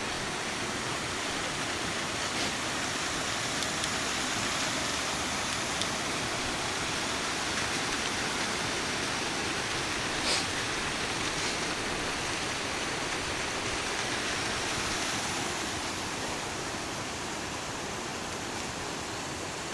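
A steady, even rushing noise, with a faint tick about ten seconds in and another a second later.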